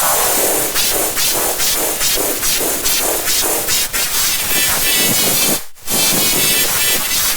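A logo jingle run through heavy distortion and noise effects: a loud, harsh hiss pulsing about two to three times a second. It breaks off briefly about five and a half seconds in, then resumes.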